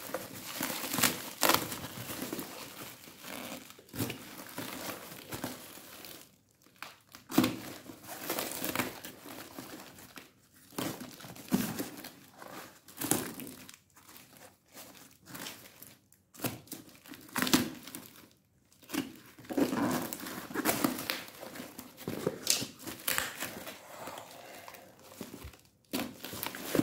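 A cardboard parcel being torn open by hand, with plastic bubble wrap crinkling as it is handled: irregular rips, crackles and rustles with short pauses between them.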